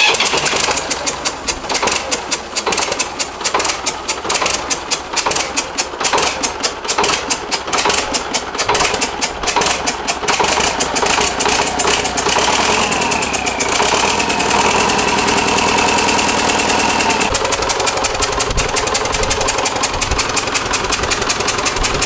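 Freshly rebuilt turbocharged tractor diesel engine, running on a stand, firing up on its first start after the rebuild. For the first several seconds it runs loud and uneven with a rapid clatter, then settles into a steadier run, with a whine that dips in pitch and then holds steady in the middle.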